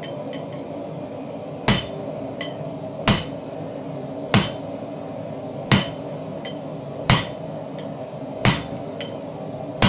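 Heavy hammer blows on the top die of a handmade fullering tool, driving it into a hot Damascus knife billet on an anvil: about seven ringing strikes, roughly one every second and a half, some followed by a lighter tap, over a steady low hum. The fuller is drawing out width behind the bolster of an integral knife.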